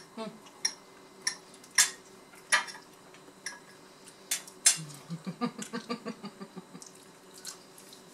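Metal forks clinking and scraping on ceramic dinner plates: a series of sharp separate clinks. About five seconds in comes a short run of quick voiced pulses from a person.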